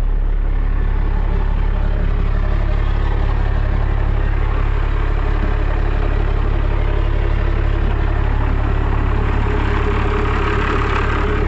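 Cummins 12-valve 5.9-litre inline-six turbo diesel in a Dodge Ram dually, idling steadily on a cold start with a freshly changed fuel filter and its water-in-fuel bulb just drained.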